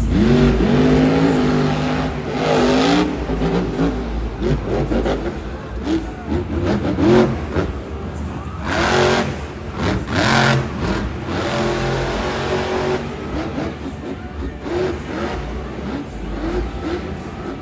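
Monster truck's supercharged V8 revving hard again and again, its pitch rising and falling as the truck spins in the dirt. There are two louder blasts of noise about nine and ten and a half seconds in.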